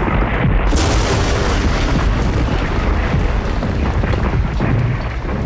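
Loud, continuous deep rumble of a staged earthquake sound effect, with a crashing, rushing noise joining about a second in.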